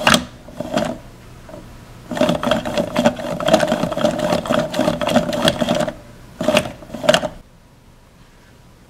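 Plastic Play-Doh Hulk Smashdown toy's arms swinging up and down as its head is pressed, a clattering plastic mechanism. A few separate strokes come first, then a continuous rapid rattle from about two seconds in until about six, then two last strokes.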